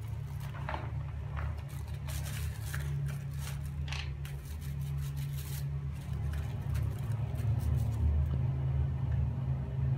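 Stiff-bristled plastic scrub brush scrubbing a plastic toy animal in soapy water: a string of short scratchy strokes, mostly in the first six seconds, over a steady low hum.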